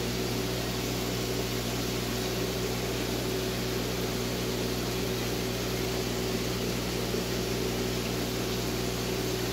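Steady hum and hiss of aquarium fish-room equipment: pump and air-pump motors giving a low electrical hum, under the hiss of aeration and moving water in the grow-out tanks.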